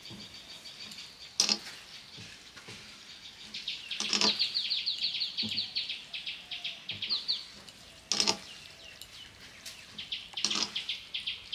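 Wet squelching and sharp clicks of a hand kneading and squeezing water-soaked rice (panta bhat) against a steel plate, in several bouts with quick runs of squishes between them. Birds chirp faintly in the background.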